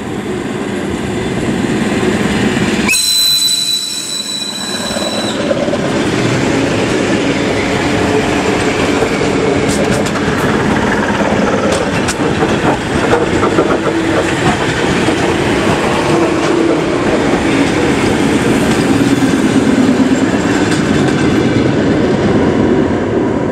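ER9M electric multiple unit pulling out and passing close by, its wheels clattering over the rail joints. A brief high-pitched tone sounds about three seconds in, and the train noise eases slightly near the end as the last cars go by.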